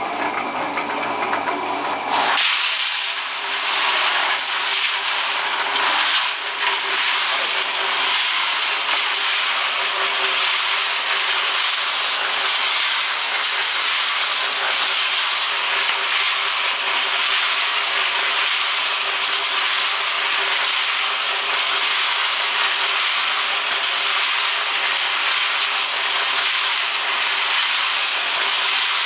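Small electric concrete mixer running with a steady hum, its drum turning. About two seconds in, gravel goes into the drum, and from then on the stones rattle and churn inside it steadily.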